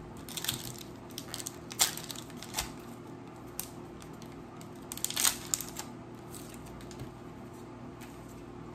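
Foil Pokémon booster pack wrapper crinkling and tearing as it is opened, in short irregular bursts of crackle, the loudest about five seconds in.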